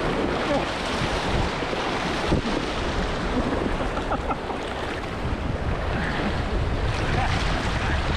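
Whitewater river current rushing steadily over a rapid, with wind buffeting an action-camera microphone.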